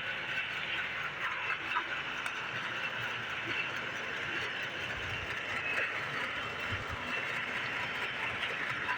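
Mini-split air conditioner's outdoor unit running steadily on a test run with its newly replaced compressor and condenser fan.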